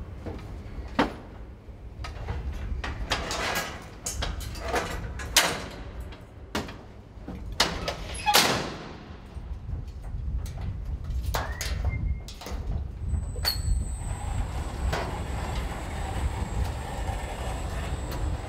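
GEDA 2PK construction hoist: its metal door and gate clatter and bang shut several times, then about two-thirds of the way in the drive starts with a steady high whine as the cab begins to climb the mast.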